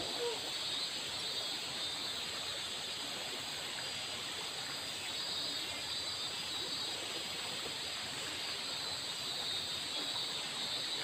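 Shallow river running over a rocky riffle: a steady, even rush of water with a constant high hiss over it.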